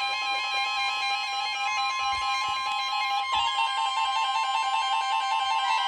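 Electronic background music of a broadcast emergency alert: a fast, repeating keyboard figure over two steady, alarm-like tones held throughout. The pattern shifts about three seconds in.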